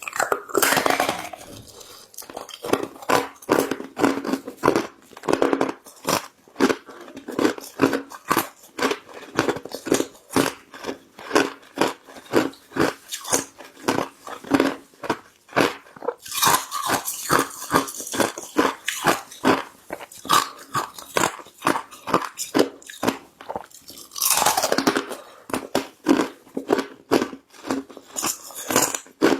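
Ice being chewed and crunched in a mouth: a steady run of sharp crunches, a few a second, with louder bites near the start, about halfway through and again near the end.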